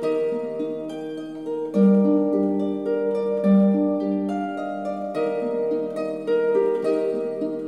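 Solo harp improvising slowly over two chords: plucked notes that ring on and overlap, with louder low notes struck about two seconds in and again about three and a half seconds in.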